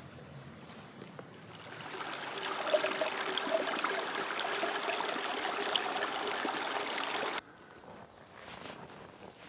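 Water trickling and gurgling, which stops abruptly near the end.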